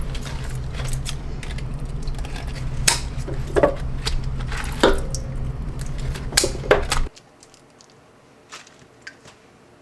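Dishes and utensils clattering and clinking in a kitchen over a steady low hum, which cuts off suddenly about seven seconds in; a few faint clicks follow.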